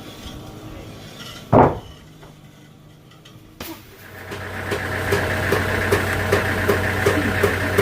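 A single loud knock, then an engine comes up about halfway through and runs steadily, with a regular light ticking.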